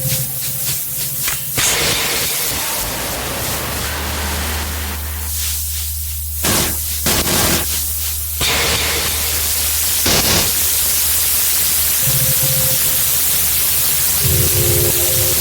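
Ambient glitch noise music: a wash of static hiss over a low steady drone, cut by sudden bursts of noise around the middle, with steady tones coming back near the end.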